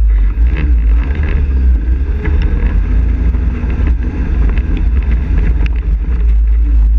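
ATV engine running as the quad rides over a rough dirt trail, under a heavy low rumble of wind buffeting the microphone, with a few short knocks from bumps along the way.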